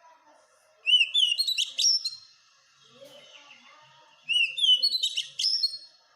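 Oriental magpie-robin (kacer) singing: two loud song phrases a few seconds apart, each opening with a few quick up-and-down whistled notes and running into a fast string of sharp notes.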